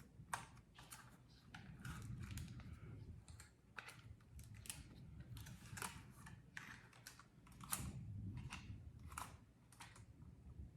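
Irregular light clicks, taps and soft handling noise of a DJI Mini 2 drone and its plastic packaging being handled and unpacked.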